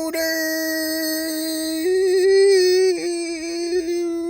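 A voice singing one long held note, with a slight waver, that steps up in pitch partway through and drops back near the end.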